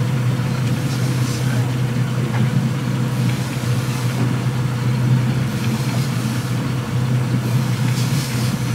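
Boat engine running steadily at low revs: an even, unbroken low hum.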